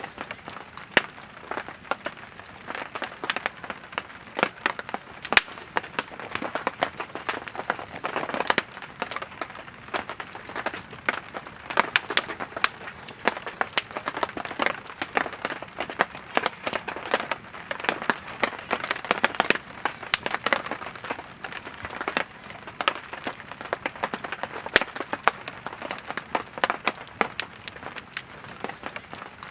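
Campfire of split firewood burning, crackling with frequent irregular pops and snaps over a soft hiss of flame.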